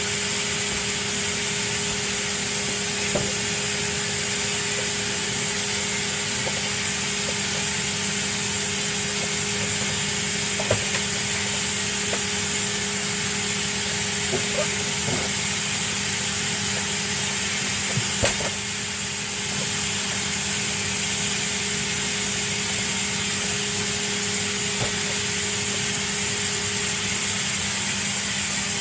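Upright vacuum cleaner motor running steadily with a high whine, with scattered clicks and ticks of dry cereal flakes being hit and sucked up from the carpet.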